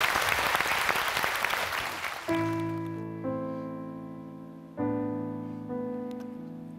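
Audience applause dies away over the first two seconds. Then a piano plays the slow opening chords of a ballad, each chord ringing and fading before the next is struck, about four chords in all.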